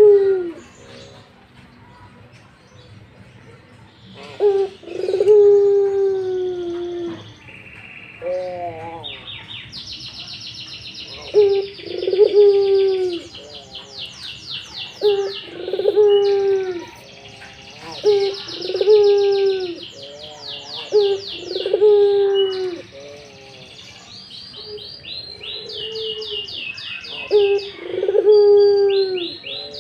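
Puter (Barbary dove) cooing over and over in breeding condition, each coo a low call that falls in pitch, with about a dozen coos in the stretch. Small birds chirp and trill rapidly and high-pitched in the background.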